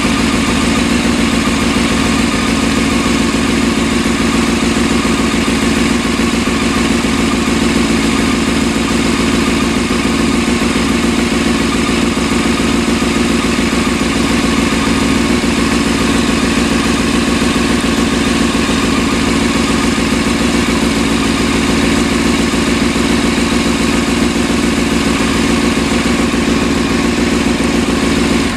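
Sport motorcycle engine running at a steady speed after a coolant refill, circulating the new coolant and purging air from the cooling system. It cuts off at the very end.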